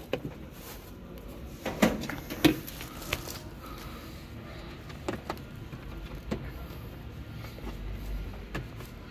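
Knocks, clicks and rattles of a plastic pet carrier and its grille door being handled, a handful of short sharp hits at uneven intervals, the loudest about two seconds in.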